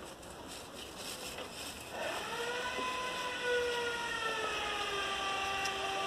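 A long horn or whistle blast: a steady pitched tone with several overtones sets in about two seconds in, then drops to a lower pitch partway through and holds. Before it there is a faint crackling patter.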